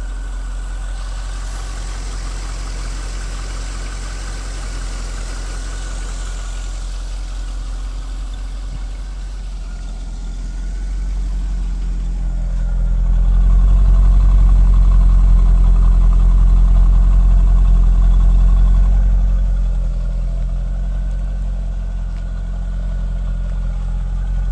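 Chevrolet Corvette C5's 5.7-litre LS1 V8 idling steadily, its low burble growing louder for several seconds in the middle as it is heard from the rear of the car, then easing back.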